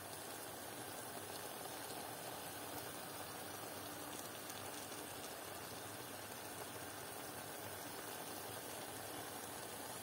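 Pan of king prawns, cherry tomatoes and avocado simmering steadily in their juices.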